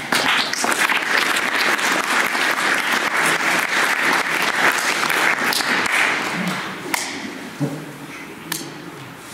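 Audience applauding, starting suddenly and dying away after about six and a half seconds, followed by a few scattered knocks.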